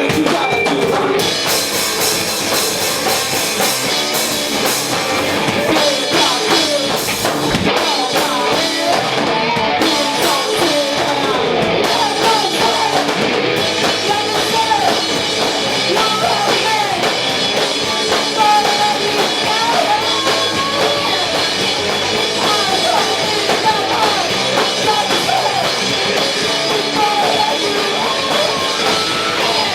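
Live rock band playing loud and without a break: a drum kit and electric guitar, with singing.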